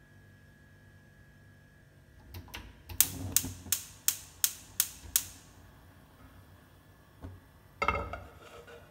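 Gas hob burner's igniter clicking rapidly, about eight sharp clicks at roughly three a second, as the burner lights. Near the end a pan is set down on the burner grate with a knock and a short metallic ring.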